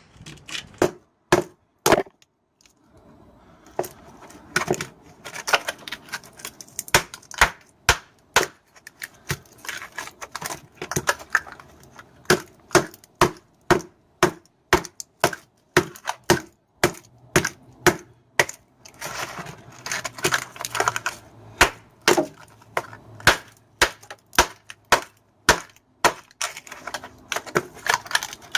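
Repeated hammer blows on a microwave oven transformer, beating it apart to get at the copper windings: sharp strikes about one to two a second, with a short pause a couple of seconds in.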